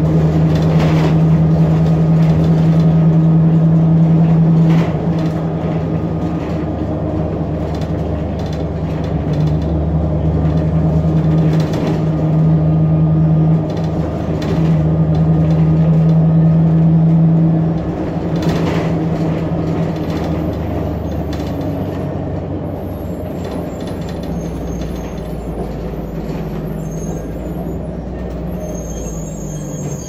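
John Deere 8.1G natural-gas engine of a Blue Bird Xcel 102 CNG transit bus, heard from the rear seats, running under load with a steady drone. The drone eases off and picks up again a few times, then falls to a quieter, lower rumble for the last third.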